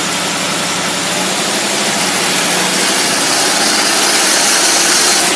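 Engine fed by a Rochester single-barrel carburetor running hard at high revs under heavy dyno load, growing slowly louder and easing off right at the end. The shaking in the sound is the rev limiter kicking in.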